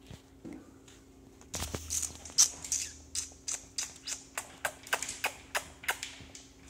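A run of light, evenly spaced clicks, about three a second, starting about a second and a half in, over a faint steady hum.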